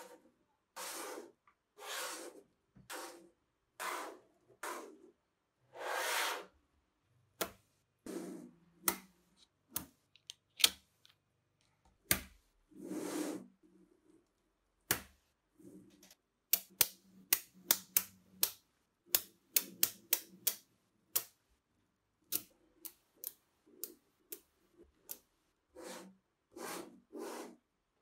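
Sheets of small magnetic balls sliding and rasping across a tabletop, with sharp clicks as the sheets snap against each other. The rasps are longer in the first quarter; from about 16 to 21 seconds in comes a quick run of loud snapping clicks, two or three a second.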